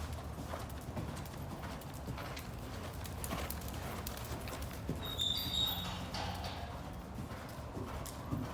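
A ridden horse's hooves clip-clopping over a low rumble, with a brief high-pitched tone about five seconds in.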